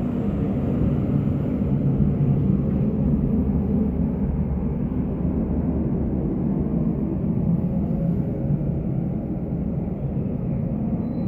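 A steady low rumble with a faint droning hum, unchanging throughout.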